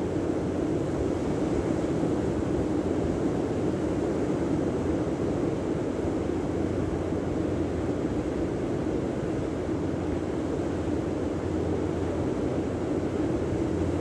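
Steady rushing noise of ocean surf and wind on a sandy beach, even throughout with no single wave standing out.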